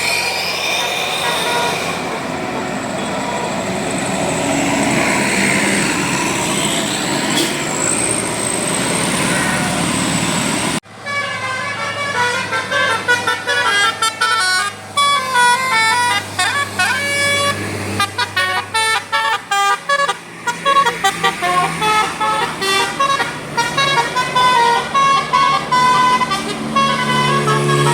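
Traffic noise for the first part, then, after a cut about 11 seconds in, a bus's multi-tone telolet air horn playing a fast tune of short notes that step up and down in pitch.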